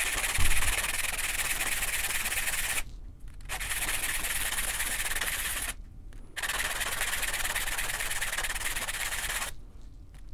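A copper ring band being rubbed by hand on a flat sheet of sandpaper, a steady gritty scraping to level its edges. It stops briefly three times, about three seconds in, about six seconds in, and near the end.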